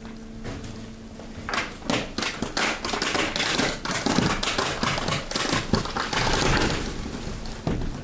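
Hydraulic waste compactor crushing waste: a dense run of sharp cracks, snaps and crackles as the load is pressed, starting about a second and a half in and easing off near the end, over a steady hum from the hydraulic power unit.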